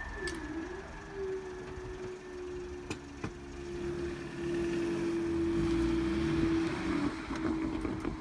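Level crossing barriers' hydraulic motor whining steadily as the barrier booms rise, with a couple of clicks from the mechanism about three seconds in. A low car-engine rumble sits underneath.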